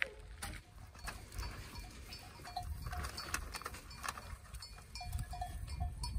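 Bells on a grazing flock of sheep clinking and tinkling irregularly, many short clinks and brief ringing notes.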